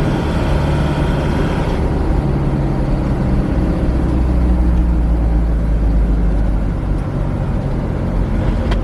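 Vehicle engine and road noise heard from inside the cab while driving, a steady low engine hum whose pitch shifts a few times.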